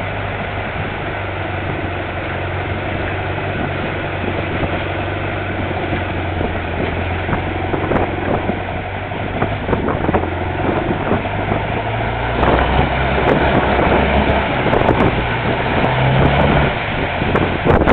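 Longtail boat's inboard engine running steadily, a low drone that grows louder and rises a little in pitch from about twelve seconds in as it is throttled up.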